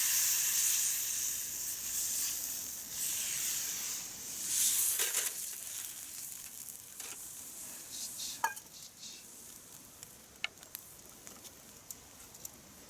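Food sizzling in a frying pan over a campfire. The sizzle is strong at first and dies down gradually, with a few light clicks and taps in the second half.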